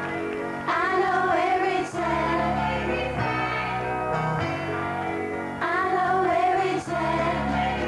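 Live pop song: women's voices singing over a backing track with sustained bass notes. The same sung phrase comes twice, about a second in and again near six seconds.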